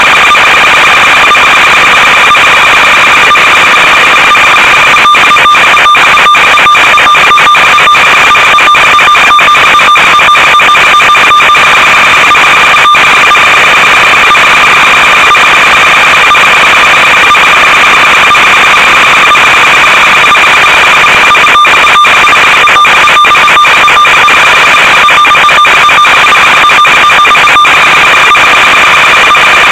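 Loud, steady electronic buzz with a higher overtone over hiss, from the audio channel of an analog FPV video downlink rather than the plane itself. Crackles and brief dropouts come in clusters as the radio signal breaks up.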